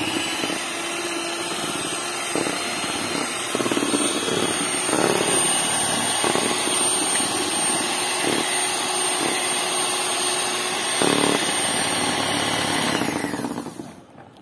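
Kenwood electric hand mixer running steadily, its twin beaters whisking cake batter in a plastic bowl, with a few knocks of the beaters along the way. It is switched off near the end and whirs down with a falling pitch.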